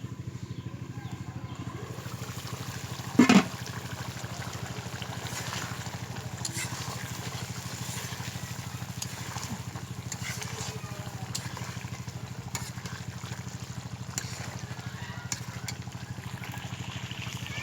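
Covered pot of chicken curry simmering on a wood-fired clay stove: faint bubbling and scattered small crackles over a steady low hum. A short, loud bump about three seconds in.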